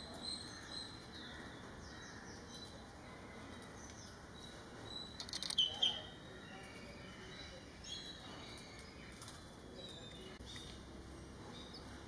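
Birds chirping and calling in the background, scattered short high chirps over a faint steady hiss, with a brief louder burst of sound a little over five seconds in.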